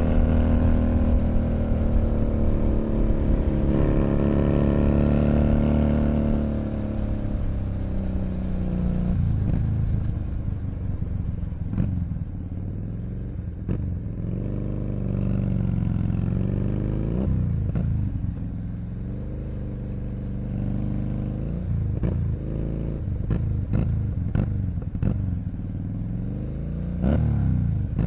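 Keeway SCR 250V motorcycle engine running through a custom shortened exhaust. It is strong and steady at first, then drops lower and quieter after about six seconds. After that the pitch rises and falls in small revs, with short knocks here and there.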